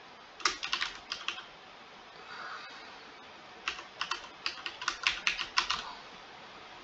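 Typing on a computer keyboard: two quick runs of keystrokes, the first about half a second in and the second from about three and a half to six seconds in.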